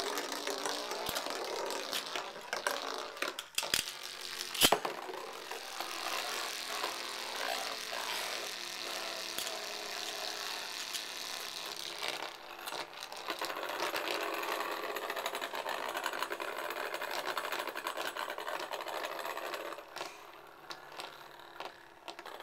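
Two Beyblade spinning tops, Hyper Aquario and L-Drago, whirring and rattling as they spin and grind on a plastic dish, with a few sharp clacks in the first five seconds as they strike each other. The whirring grows quieter near the end as the tops slow.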